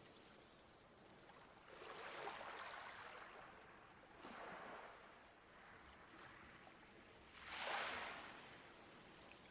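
Light waves washing onto a pebble beach, three gentle swells, the last one the loudest, near the end.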